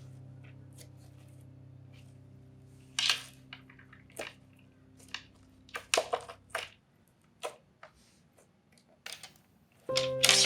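Slime being worked by hand: scattered sticky pops, clicks and squelches. Under it a soft steady background music tone fades out partway through and comes back near the end.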